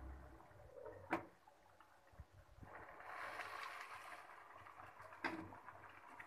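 Thick spinach gravy bubbling in a steel pot as a steel ladle stirs it. The ladle clinks sharply against the pot twice, about a second in and near the end.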